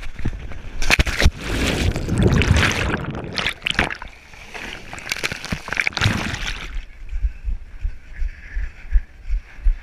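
Loud water splashing and sloshing, with sharp knocks, as racers wade and haul themselves up out of the water onto a floating netted obstacle. About seven seconds in the splashing stops, leaving quieter low thumps.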